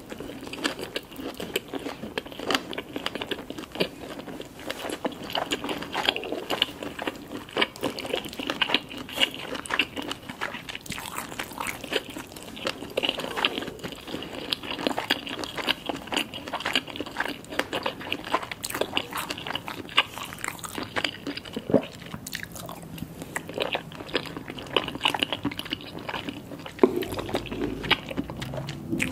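Close-up eating sounds: food being bitten and chewed, a steady stream of quick mouth clicks and smacks.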